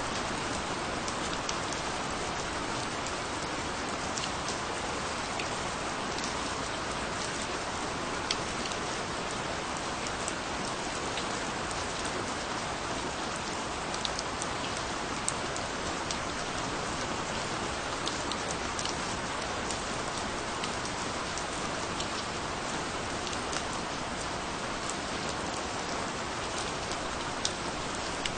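Steady rain falling, with individual drops ticking close by at scattered moments.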